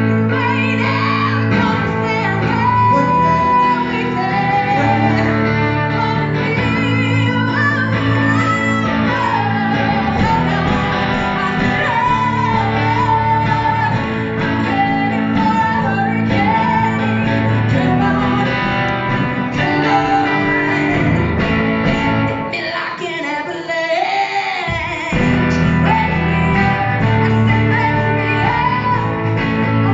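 A band playing a song with a female lead vocal over guitars, bass and drums. About 23 seconds in, the low end drops out for about two seconds, leaving the voice and upper instruments, and then the full band comes back in.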